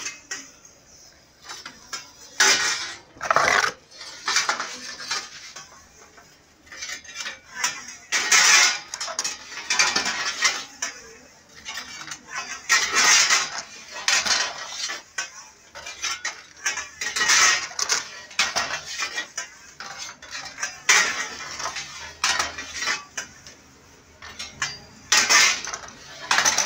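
Metal baking trays scraping and clanking as they are pushed across the oven floor with a long iron peel, again and again every few seconds.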